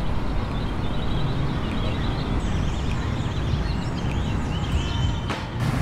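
Steady low rumble of city traffic with small birds chirping over it; the sound drops out briefly near the end.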